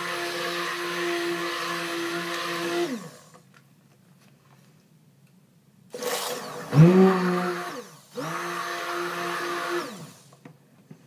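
Handheld stick blender whirring in cold-process soap batter, mixing in fragrance oil, in three short runs that each wind down in pitch as it is switched off. The first runs about three seconds; after a quiet pause come two more back to back, the first of these loudest and roughest at its start.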